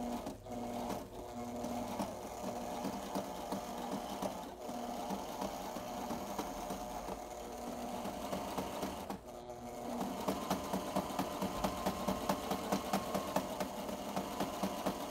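Sailrite sewing machine stitching slowly in straight stitch through bias binding on clear vinyl, a steady motor hum with the needle's rhythmic clatter. It stops briefly about nine seconds in, then starts again.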